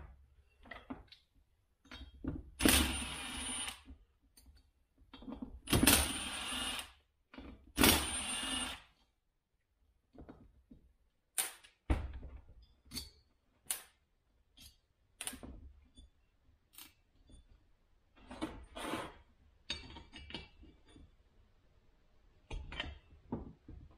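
Three blasts of compressed air from an air blow gun, each about a second and a half long, cleaning off the chainsaw's removed intake and fuel-injector part. Scattered clicks and knocks of the part and tools being handled on a workbench follow.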